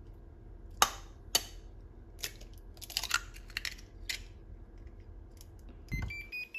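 An egg knocked twice against a hard edge and its shell cracked and pulled apart with a crackle. Near the end a button press on a Toshiba RC-7HMC induction rice cooker, which answers with a short run of beeps rising in pitch.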